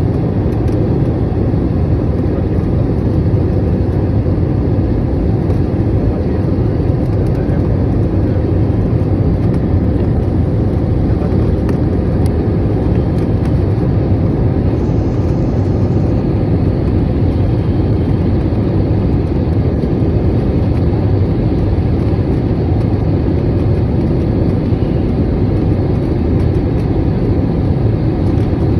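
Steady cabin noise of an airliner on its landing approach: the even, low-pitched rush of the jet engines and airflow heard from inside the cabin.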